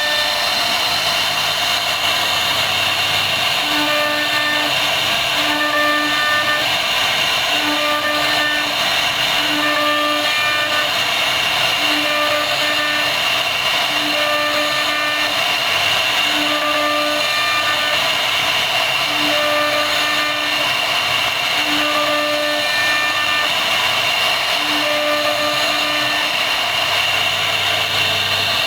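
CNC router spindle running steadily with a high-pitched whine as it carves a wooden panel. A lower hum comes and goes every second or so as the machine moves.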